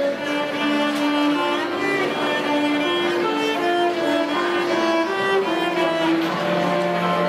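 Instrumental music: a violin playing a melody of held notes over lower bowed strings.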